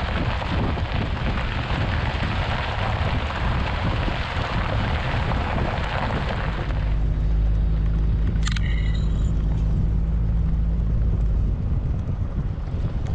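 Moving vehicle heard from inside: a loud rushing road and wind noise for the first six or seven seconds, which then eases off, leaving a steady low engine drone. A single click with a brief electronic beep comes about eight and a half seconds in.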